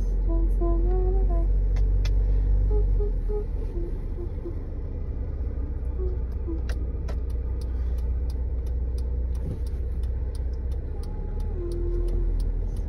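Steady low rumble of a car on the move, heard from inside the cabin, with faint music notes near the start and end and a few light clicks in the second half.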